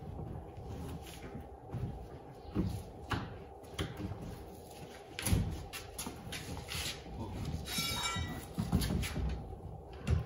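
Electrical cable being pulled through holes in wooden wall studs: scattered knocks and scrapes against the wood, the loudest about five seconds in, with a brief high-pitched sound about eight seconds in.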